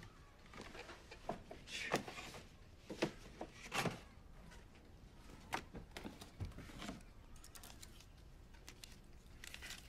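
Light knocks, clicks and rustles of boxes and papers being handled and set down on a table, irregular, about one a second, with a duller low thud about six and a half seconds in.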